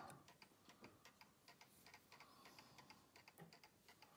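Faint, quick, even ticking of a Breguet 'parigina' clock movement running, about five ticks a second.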